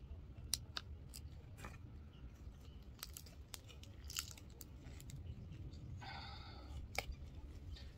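Scattered small cracks and clicks of plastic as the cut-out section of a Ford Focus Mk2 ST upper grille is worked free by hand, with a brief scrape about six seconds in.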